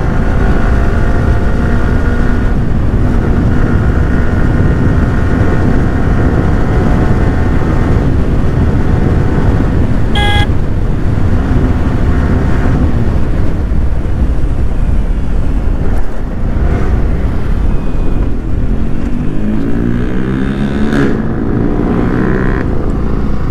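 Motorcycle engine running at road speed under a heavy low wind rumble, its pitch rising and falling near the end as it is revved through the corners. A short horn beep sounds about ten seconds in.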